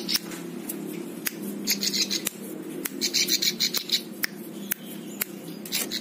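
Caged prinia (ciblek sawah) singing in short, fast, buzzy bursts, once about two seconds in and again about three seconds in, with sharp clicks scattered between them.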